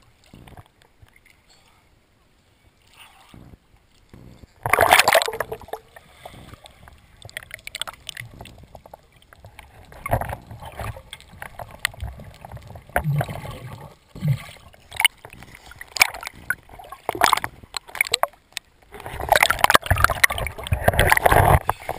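A jumper hits the sea with a loud splash about five seconds in, followed by irregular gurgling, sloshing and knocks of water around a partly submerged action camera. Near the end there is a long stretch of dense splashing.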